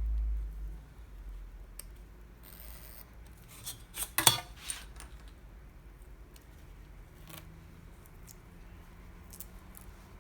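Cloth tape being handled and cut, with a low thud at the start, then a few sharp snips and clicks, the loudest about four seconds in.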